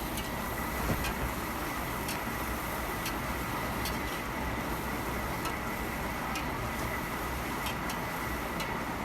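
Chicken frying in oil in a pot, a steady sizzle with scattered small pops.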